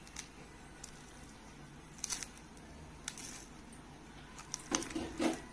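A hand mixing raw chicken pieces with cornflour and spice masala in a steel bowl: faint squishing and rustling, with a couple of louder squelches near the end.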